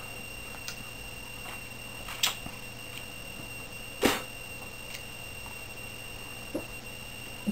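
Mouth sounds of a person eating half a lemon: a few short, sharp smacks and sucks, the loudest about two and four seconds in.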